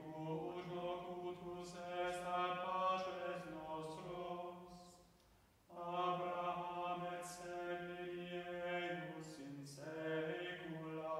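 Unaccompanied male voice plainchant, each phrase sung on a steady reciting note. The voices drop in pitch at the cadences, with a pause about five seconds in and a shorter one near the end.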